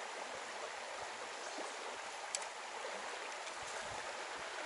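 Mountain river water running over rocks: a steady, even rushing hiss, with one short, sharp click about halfway through.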